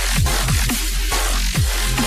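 Background electronic dance music with a heavy bass and repeated deep bass hits that drop in pitch.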